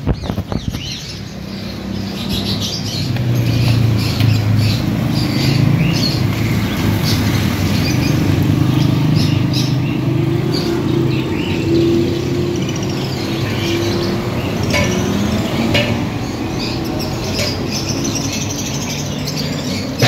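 Birds chirping and tweeting in short, repeated calls over the steady drone of a motor running nearby, which grows louder a few seconds in.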